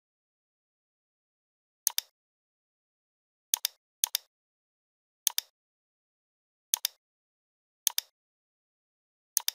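Computer mouse button clicks, seven at uneven intervals. Each is a sharp double tick of press and release, with silence between.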